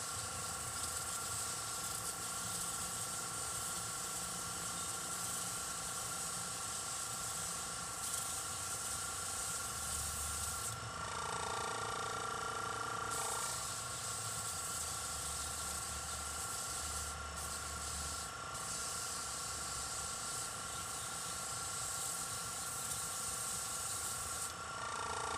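Airbrush spraying paint: a steady hiss of air from the nozzle over a constant low hum. The hiss stops for a couple of seconds about eleven seconds in and again just before the end.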